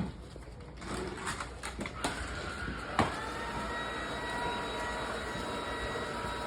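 A few light knocks, then a vacuum cleaner switches on about two seconds in, with a click, and runs with a steady whine.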